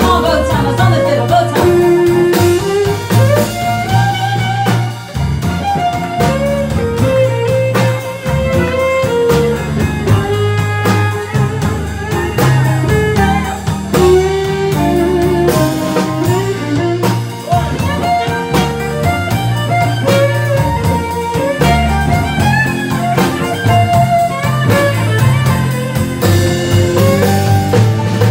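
Live band playing a song, with acoustic guitar, electric guitar, fiddle and keyboard.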